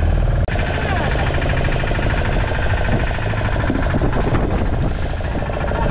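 A small fishing boat's engine running steadily, with men talking over it now and then. The sound drops out briefly about half a second in.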